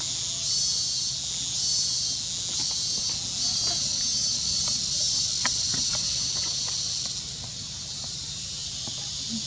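Insects droning in a high, shrill buzz that swells and fades about once a second, then settles to a steadier, quieter drone about seven seconds in. A steady low hum runs underneath, with a few faint ticks around the middle.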